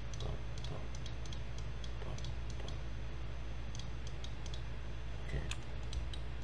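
Irregular small clicks of a computer mouse and keyboard in use, over a steady low hum.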